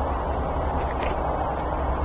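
Steady low hum with a hiss over it, with a couple of faint soft clicks about a second in as a sesame-seed burger is lifted off the stack by hand.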